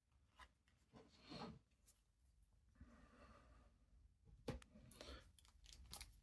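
Faint rubbing and sliding of trading cards being handled, with a sharper click about four and a half seconds in.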